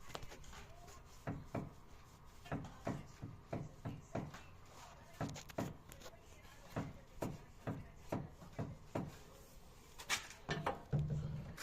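Repeated short clunking knocks from a car, often in pairs, about one or two a second: the noise problem being demonstrated. A brief low hum comes in near the end.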